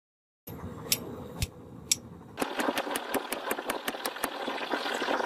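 Hammer blows on a red-hot iron chain link on an anvil: three single strikes, then from about two seconds in a fast run of strikes, about five a second. A steady mechanical running noise lies underneath.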